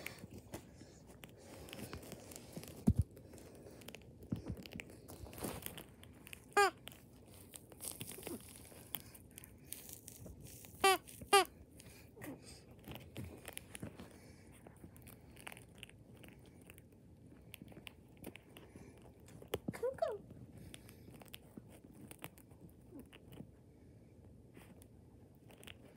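Shih Tzu puppy gnawing a chew toy, with soft crunching and clicking of teeth on the toy throughout. A few short high-pitched squeaks come through, two of them in quick succession about eleven seconds in.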